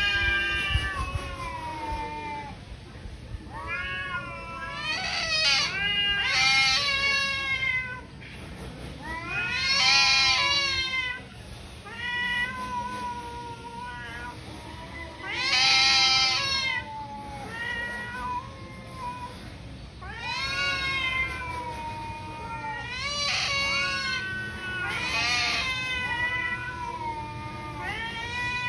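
Domestic cats in a fight standoff yowling at each other: long, wavering, drawn-out yowls that rise and fall in pitch, one after another, loudest about ten and sixteen seconds in.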